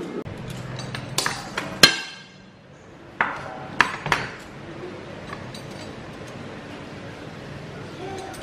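Kitchen items knocking and clinking on a countertop: a few sharp knocks, one ending in a brief metallic ring about two seconds in, then three more knocks a second or so later, followed by quiet handling while a mango is peeled with a knife over a wooden cutting board.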